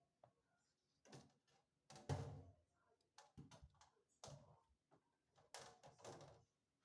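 Box fan grill being handled and fitted against the fan's housing: a string of irregular knocks and rattles, the loudest about two seconds in.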